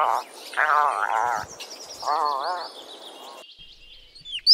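Puffins calling: three long, wavering calls about a second apart. Near the end, after a cut, a northern cardinal starts singing sharp down-slurred whistles.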